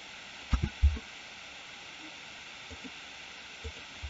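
Steady faint hiss of a desk microphone, with a quick cluster of short, low thumps about half a second to a second in and a few fainter taps near the end.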